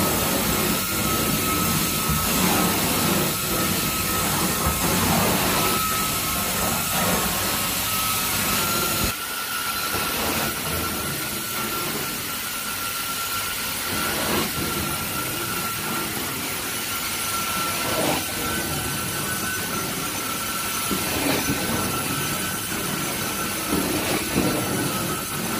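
Carpet-cleaning extraction wand running under strong vacuum, pulling water back up the hose: a steady high whine over a rushing hiss that surges with each stroke across the carpet. The low rumble under it drops away about nine seconds in.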